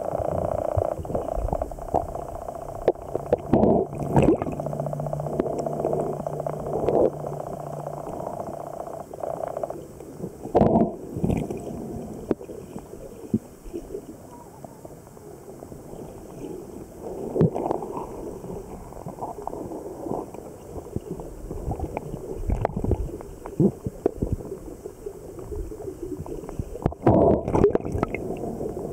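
Underwater sound through a camera housing: bursts of bubbling and gurgling every few seconds, typical of a diver's exhaled breath, over a muffled background and a steady hum that stops about nine or ten seconds in.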